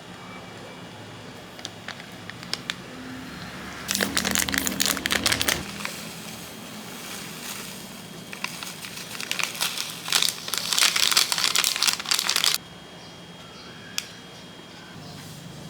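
Packaging crinkling as it is handled, in two dense crackly bursts: a short one about four seconds in and a longer one from about eight seconds that stops suddenly.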